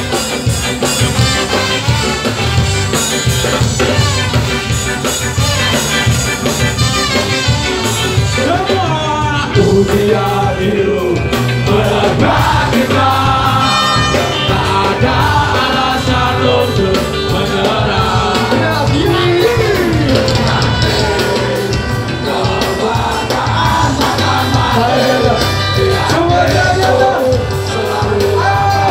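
Ska band playing live, with a steady beat and a melody line over it.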